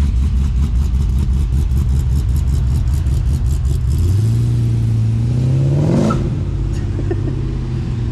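Holden VN Commodore's engine rumbling as the car rolls away, then its revs climbing steadily for about two seconds as it accelerates off, before dropping away sharply.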